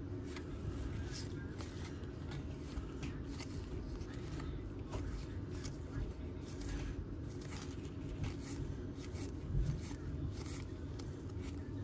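2022 Topps Series 2 baseball cards being handled and slid past one another: a string of light, irregular rustles and scrapes over a low steady room hum.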